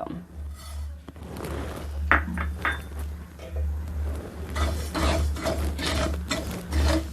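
Spatula stirring sesame seeds roasting in a metal pan: a few clinks about two seconds in, then repeated scraping strokes about three a second from a little past the middle. A steady low hum runs underneath.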